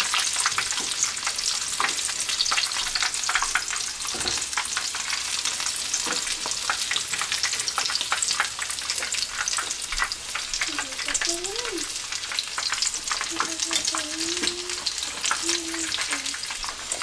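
Breadcrumb-coated chicken legs sizzling in hot oil in a small frying pan, a steady dense crackle of many sharp little pops.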